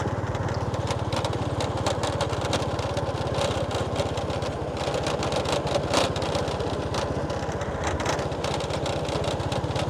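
Small vehicle engine running steadily on the move, its even firing pulses forming a low drone, with light wind and road noise and a few brief clicks.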